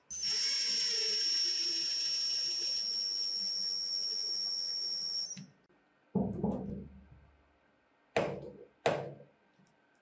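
A power drill drives a screw into a pine board, its motor running with a steady high whine for about five seconds before it stops. Then a dull knock and two sharp knocks as a claw hammer is set against the board and screw.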